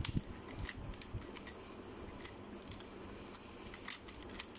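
Scattered light clicks and knocks of a Sixshot Transformers figure's plastic parts being handled and shifted through its transformation. The clicks cluster in the first second and again near the end.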